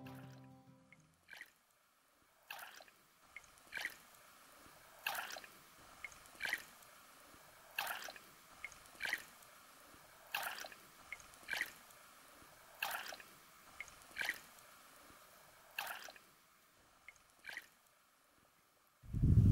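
Kayak paddle blades dipping into calm water in steady strokes, a soft splash and drip a little over a second apart. A loud low rumble starts right at the end.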